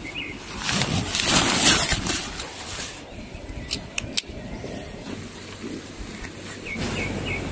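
Nylon tent fabric rustling as a tent is pulled out and handled, then a few sharp clicks as the tent pole's sections are handled. Birds chirp near the end.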